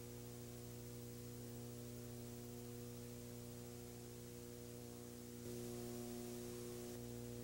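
Steady electrical mains hum with faint hiss, growing slightly louder about five and a half seconds in.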